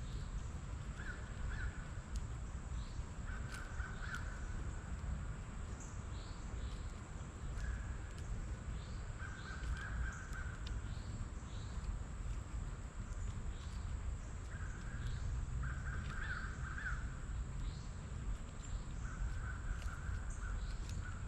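Wild birds calling: one bird gives about six short bursts of rapid repeated calls a few seconds apart, and fainter high chirps from other birds come between them, over a steady low rumble.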